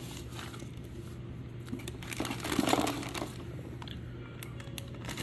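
Plastic packaging crinkling and rustling as small hardware parts are handled, with a few light clicks. It is loudest about two to three seconds in, over a steady low hum.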